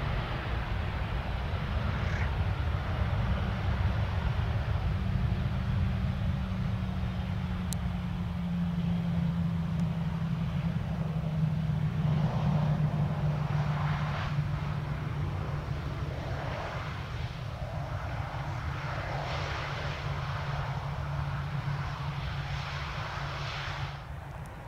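Airbus A319 jet engines running as the airliner rolls along the runway: a steady low rumble with a hum that slowly falls in pitch.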